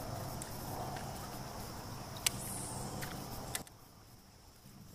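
A steady low hum over a thin, even insect drone, with one sharp click a little after two seconds in. The hum cuts off abruptly about three and a half seconds in, leaving the insect drone.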